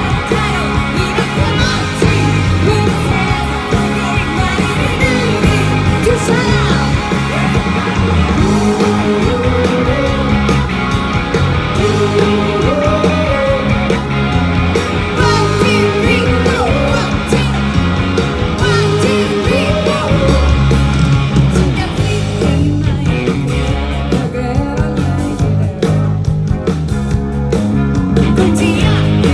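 Live rock band performance: a woman sings the lead over drums, bass and electric guitars, with the full band playing.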